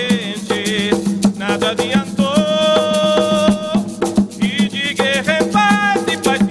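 Umbanda sung prayer (a ponto): singing over drums and other percussion, with one long held note in the middle.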